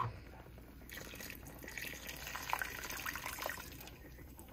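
Blended green tomatillo salsa pouring from a blender jar into a hot stainless steel pot of browned pork chops. The liquid splashes and sizzles against the hot oil with fine crackling, starting about a second in.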